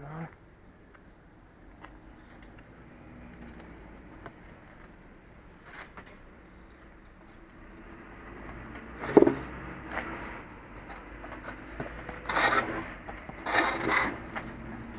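A road-works barrier pole with a heavy round base is handled on concrete pavement and set upright. Its base and pole rub and scrape on the ground, with a loud scrape about nine seconds in and two more near the end, over a faint steady low hum.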